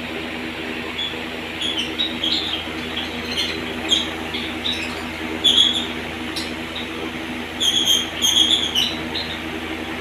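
Lovebirds giving short, high chirps, scattered and irregular with a busier run near the end, over a steady low hum.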